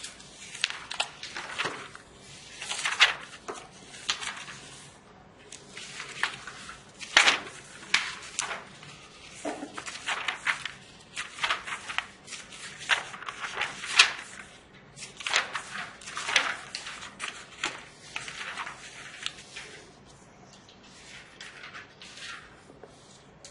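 Paper textbook being handled: pages rustling and turning, mixed with the scratch of a felt-tip marker writing on the paper, as a string of short, irregular rustles and strokes.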